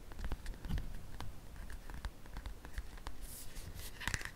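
Soft, irregular light taps and scratches close to the microphone, with a brief hissy stroke near the end.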